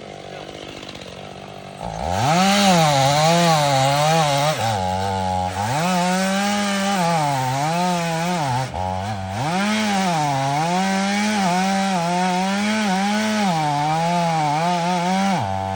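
Two-stroke chainsaw idling, then revved up about two seconds in and cutting into a pine. Its engine speed sags and recovers again and again as the bar works under load.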